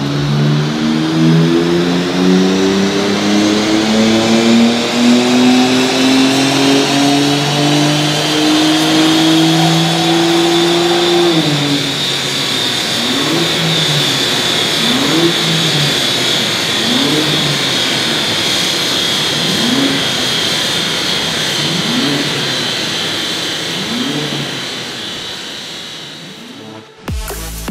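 BMW G80 M3 twin-turbo straight-six on a chassis dyno in a baseline power run: the revs climb steadily under full load for about eleven seconds, with a high whine rising alongside, then drop away. After that come a string of short rev rises and falls every second or two as the run winds down.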